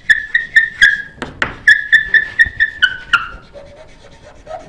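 Chalk squeaking on a chalkboard while words are written: a quick run of short, high squeaks at one steady pitch, with sharp taps of the chalk between them, dying away about three seconds in.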